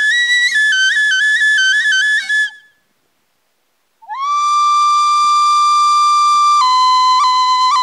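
Music played on a solo high-pitched wind instrument: a quick trill between two notes that fades out about two and a half seconds in, a second or so of silence, then a long held note that slides up into pitch, followed by a run of short repeated notes near the end.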